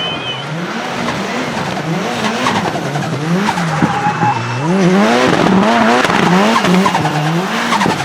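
Turbocharged Nissan 200SX S13 drift car's engine revving up and down over and over as it drifts, with its tyres squealing. It gets louder about five seconds in.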